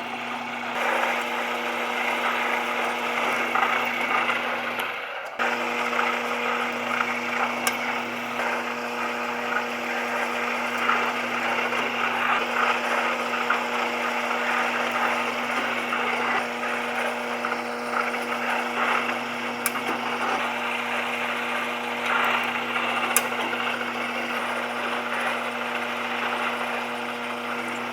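Power drill running steadily while drilling holes through small shim pieces, a constant motor hum under a dense grinding cutting noise, with a brief break about five seconds in.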